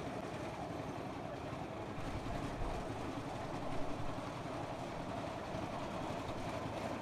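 Concrete mixer machine running steadily, its drum turning as it mixes a batch of concrete.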